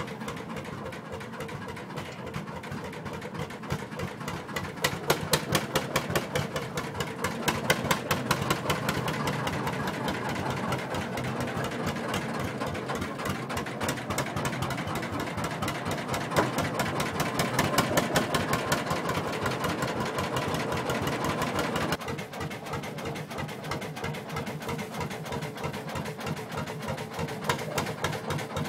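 Lanz Bulldog tractor's single-cylinder two-stroke hot-bulb engine running with a fast, even knocking beat. The level drops suddenly about 22 seconds in.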